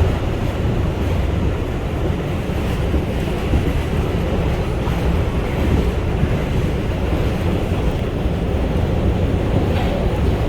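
R142 subway train running at speed, heard from inside the car: a steady rumble of wheels on rails with a rushing noise over it.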